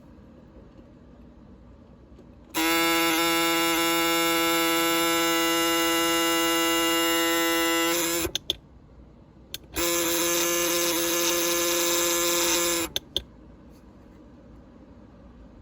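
Vintage Bradley alarm clock's alarm buzzing steadily for about five seconds, stopping with a few clicks, then buzzing again for about three seconds before cutting off, followed by a couple more clicks.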